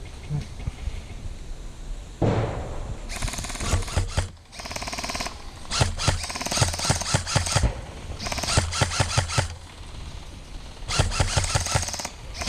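Airsoft guns firing on full auto in several rapid bursts, each about a second long, with quieter gaps between them.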